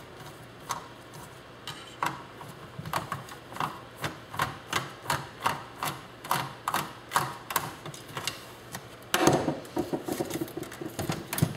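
Screwdriver work on a 1980s typewriter's metal frame: sharp metallic clicks at about two to three a second as screws are backed out of its steel plate, then a louder scraping clatter about nine seconds in.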